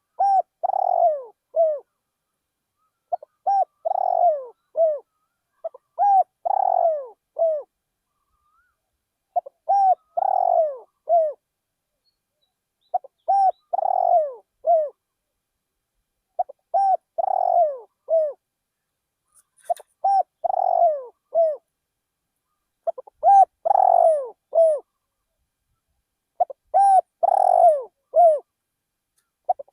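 Spotted dove cooing its song phrase over and over, about once every three seconds: a short note, a longer falling coo, then a short final coo. Faint high chirps of other small birds come in during the second half.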